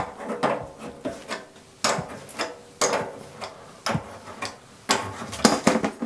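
Pliers clicking and knocking against the metal nut of a water heater's flexible supply line as it is worked loose: a dozen or so sharp metallic clicks, irregularly spaced, roughly two a second.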